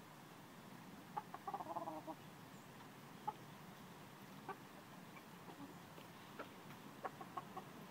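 Domestic chickens clucking softly: a short run of quick quiet clucks a little over a second in, then scattered faint single clucks.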